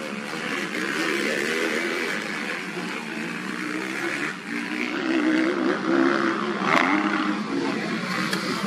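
Several motocross dirt bike engines revving up and down, their pitches rising and falling and overlapping as the bikes race, a little louder about halfway through.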